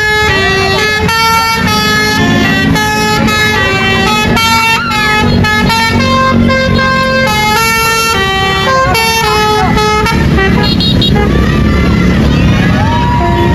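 Bus telolet horn, a multi-tone air horn, playing a tune of short stepped notes for about ten seconds over a bus engine's rumble. The tune stops about ten seconds in, leaving engine noise and voices.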